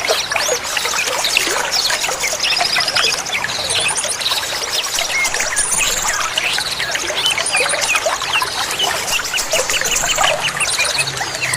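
Many small songbirds chirping and calling over one another, with short rising and falling notes and repeated rapid high trills, over a steady trickle of running water.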